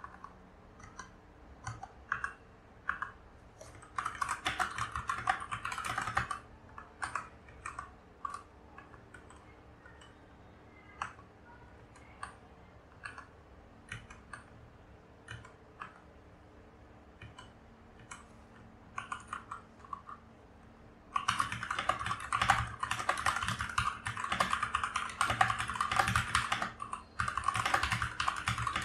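Keys of a Keychron K4 mechanical keyboard being pressed: scattered single keystrokes with a short burst of fast typing about four seconds in, then steady fast typing over the last third.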